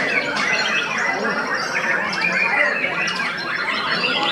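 Many caged white-rumped shamas singing at once, a dense, unbroken chorus of overlapping whistles, trills and rapid phrases.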